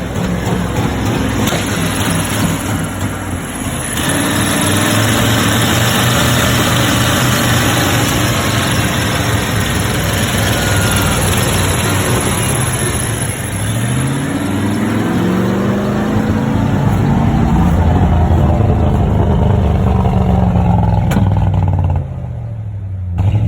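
1995 Ford F-150 engine running and being revved: the engine speed climbs in the middle, holds high for several seconds, then falls back to idle near the end.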